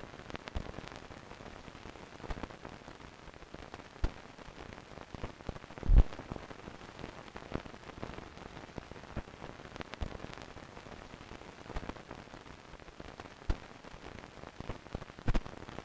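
Steady hiss with scattered crackles and pops, one every second or two, the loudest about six seconds in: old-film-style surface noise with no music.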